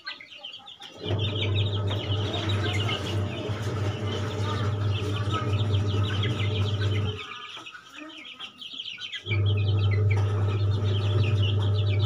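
Young Aseel chicks peeping constantly in rapid, high calls, over a steady low hum that drops out for about two seconds past the middle.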